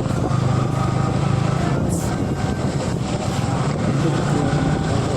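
Steady rumble of a vehicle driving along a road: engine and road noise that hold at an even level.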